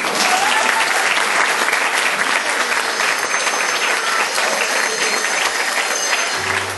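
Audience applauding loudly and steadily at the end of a stage play.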